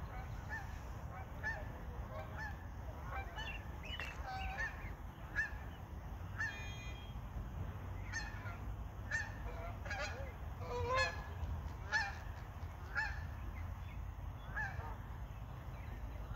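Canada geese with their goslings calling as they swim: a steady series of short, high peeps about twice a second, with a few louder calls around the middle.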